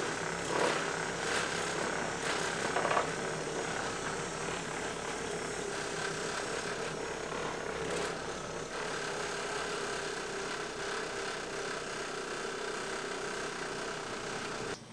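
Random orbit buffer with a wool pad running steadily against white gelcoat on a fiberglass daggerboard, buffing rubbing compound to a shine as the last stage of the repair. It cuts off near the end.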